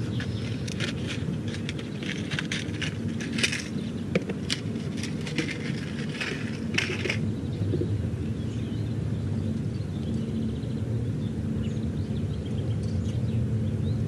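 Scattered light clicks and rattles of metal fishing tackle handled by hand: a large snap swivel being fitted onto thick monofilament line. A steady low rumble runs underneath. The clicks stop after about seven seconds.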